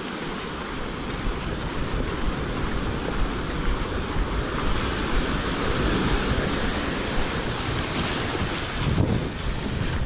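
Sea surf washing onto a sandy beach in a steady roar of breaking waves, with wind rumbling on the microphone.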